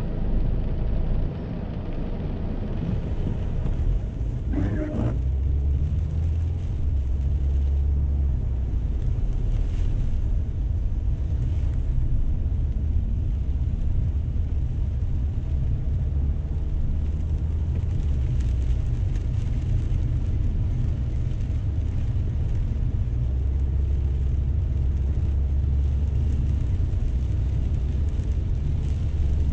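Car cabin noise while driving: a steady low rumble of engine and tyres heard from inside the car, swelling twice, with one short higher sound about five seconds in.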